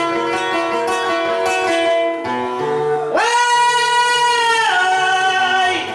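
Guitars picking the accompaniment of a Panamanian décima llanto. About three seconds in, a male singer comes in with one long held note that steps down in pitch about a second and a half later.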